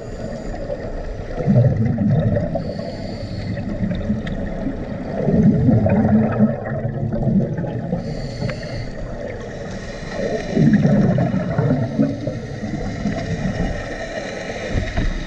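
Scuba diver breathing through a regulator underwater. A high hiss on each inhale alternates with a rumbling gurgle of exhaled bubbles; the exhales come three times, about every four to five seconds.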